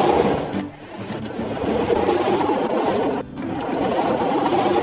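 Plastic wheels of a toy fire truck rolling on cardboard, a steady rumbling rattle, broken off briefly about three seconds in.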